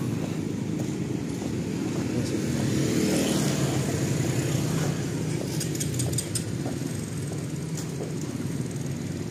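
A steady low engine rumble that runs on without a break.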